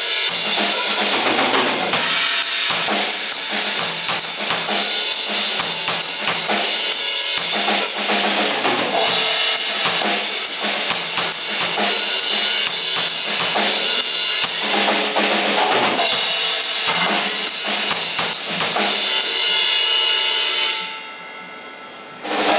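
A drum kit played live, a steady beat of kick and snare hits. The playing stops about 21 seconds in, leaving a ringing decay, and there is one more hit just before the end.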